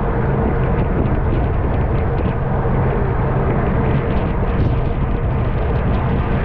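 Steady rush of wind over the microphone of a camera riding along on a racing bicycle at speed, with a low, steady hum underneath.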